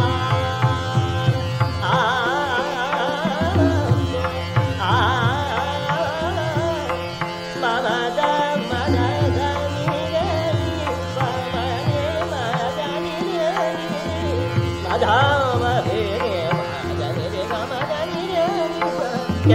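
Hindustani classical vocal in raga Yaman: a male singer's voice in wavering, ornamented phrases over a steady tanpura drone, with tabla strokes keeping time underneath.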